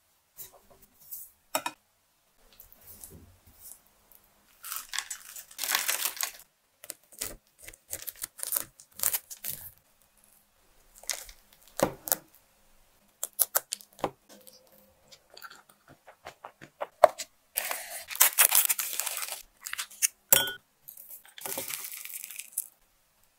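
Close-up kitchen handling sounds: a palette knife spreading whipped cream on a crepe, a fork cutting through a layered crepe cake and clicking on the plate, and, near the end, hot water poured into a glass mug. The sounds come as scattered clicks and taps with several short bursts of rustling hiss.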